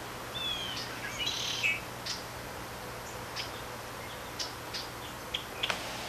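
Small songbirds calling: short, sharp chip notes spaced irregularly, with a couple of short falling whistles and a brief twitter about a second in.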